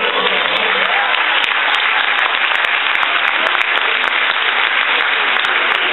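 Audience applauding, a dense steady clapping, with the last of the dance music dying away in about the first second.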